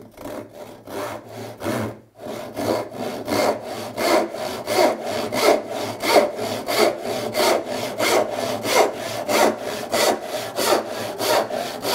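Rip-filed handsaw crosscutting a softwood board: even back-and-forth saw strokes, about three a second, with a brief pause about two seconds in.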